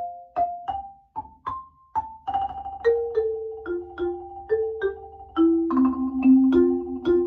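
Marimba ensemble of several overdubbed parts playing a Renaissance carol medley. It opens with a lone line of struck single notes climbing in pitch. About two seconds in, more parts enter, with a long held high note over moving lower notes, and a still lower part joins near six seconds.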